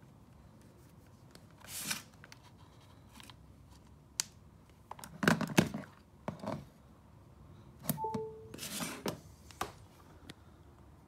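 Handling noise of a USB-C charging cable and power banks on a desk: scattered clicks and knocks as the plug is fitted, loudest about five seconds in. About eight seconds in comes a short falling two-note chime, the MacBook Pro's sound for power being connected.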